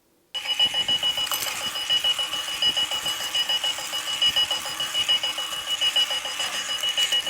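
Wheeled runaway alarm clock ringing its alarm, starting abruptly a fraction of a second in: a loud high steady tone over a rapid warbling beep pattern that repeats about ten times a second.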